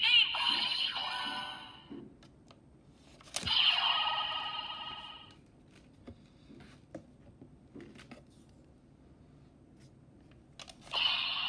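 DX Chemy Riser toy's built-in speaker playing its electronic sound effects as Ride Chemy cards are removed and inserted, in three bursts of warbling tones. A sharp plastic click starts the second burst, light plastic clicks from handling come between, and the third burst starts near the end.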